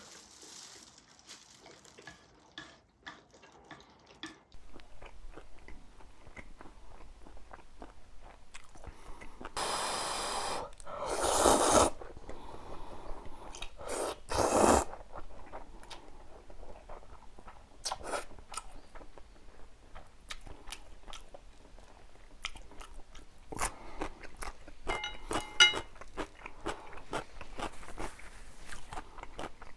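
Close-miked chewing and biting of food, with many small wet clicks and a few louder stretches about ten and fourteen seconds in. A brief ringing clink comes about twenty-five seconds in.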